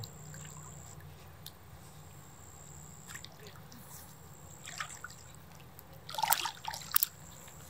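Lake water splashing and trickling around a large sturgeon held at the surface by hand as it is released, with a few small splashes and two louder ones near the end.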